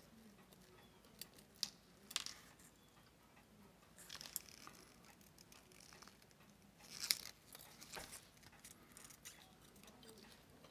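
Faint, scattered small clicks and scrapes of steel tweezers working on a watch movement's small metal parts, with a sharper click about seven seconds in.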